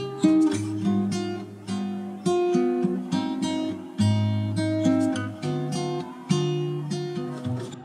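Background music on an acoustic guitar: notes and chords plucked every half second to a second and left to ring.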